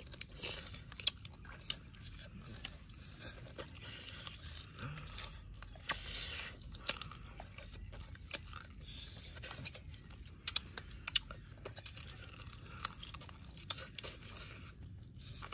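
Two people chewing and biting into crispy fried chicken feet, with many sharp, irregular crunches over continuous chewing.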